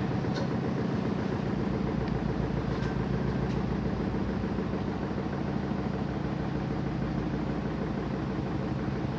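Washing machine running with a steady motor hum that holds one pitch throughout, with a few faint ticks in the first few seconds.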